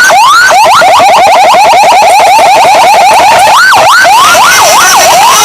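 Pandawa 87 bus telolet horn sounding loudly in siren-like patterns. It gives a few quick rising whoops, then switches about half a second in to a fast, even warble of roughly ten pulses a second. Near the end it changes to slower, wide rising and falling sweeps.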